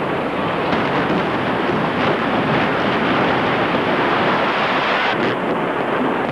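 Building implosion: the old bank building collapsing after its explosive charges, a loud, continuous rumble of the structure coming down with no separate blasts.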